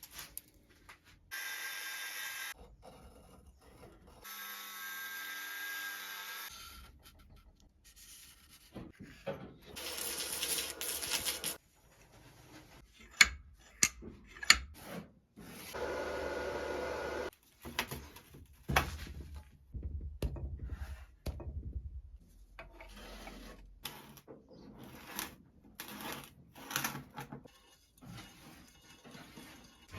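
Lathe-chuck vise being worked by hand: a run of separate scraping and rubbing strokes, each a second or two long, with sharp metal clicks and knocks in between.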